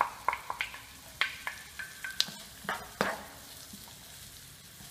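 Diced bacon, onion and garlic frying in butter in a large frying pan with a light sizzle, stirred with a wooden spoon. There is a string of light knocks against the pan in the first three seconds, then only the sizzle.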